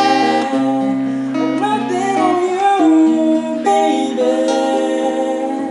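Music: acoustic guitar accompaniment under long held sung notes.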